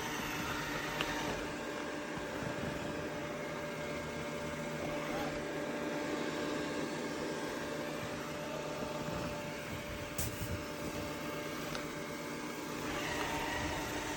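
Dreame L10s Ultra robot vacuum running, its suction motor giving a steady whir with a few faint steady tones over it.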